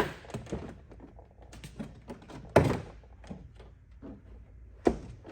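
Plastic inner door trim panel of a Mitsubishi Outlander knocking and clicking against the door as it is lifted off its unsnapped clips. There is a sharp knock at the start, a louder thunk about two and a half seconds in and another near the end, with small plastic clicks between.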